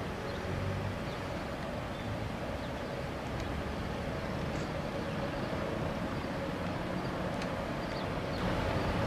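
Steady outdoor background noise: a low rumble with hiss and a faint, even hum.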